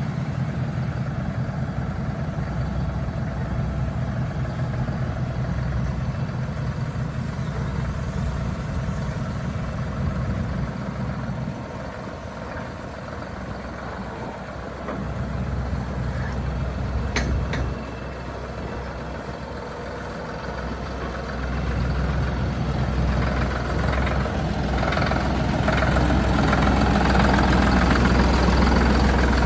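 A vehicle engine running steadily, dipping in level partway through and growing louder over the last several seconds, with a single sharp click about seventeen seconds in.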